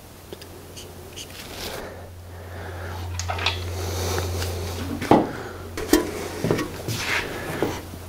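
Metal parts clanking and rattling as they are handled on an engine on its stand: a handful of sharp knocks in the second half, over a steady low hum.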